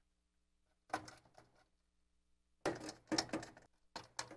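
A screwdriver driving screws through a motherboard into the case's metal standoffs: three short clusters of clicks and scrapes.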